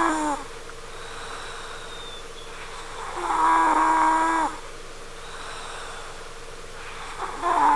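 A person snoring with a pitched, whining tone on each breath, about one snore every four seconds. The end of one snore is heard at the start, a full one of about a second and a half comes in the middle, and another begins near the end.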